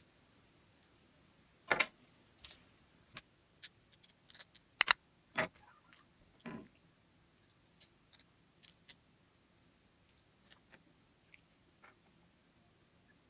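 Irregular clicks and light knocks of small cordless-drill parts being handled and fitted, several louder knocks in the first half, then a few faint ticks.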